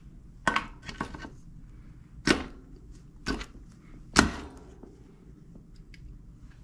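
Bicycle crank arm being fitted onto the bottom bracket spindle: five or so sharp metal clicks and knocks, spaced out, the loudest a little past the middle.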